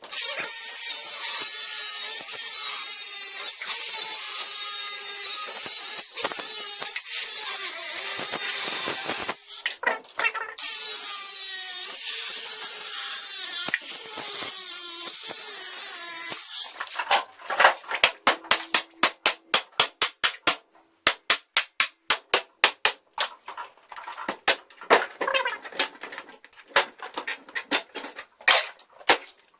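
An electric power tool running under load, its whine wandering and sagging in pitch, with one short break. A little over halfway it stops, and a run of sharp knocks follows at about two to three a second.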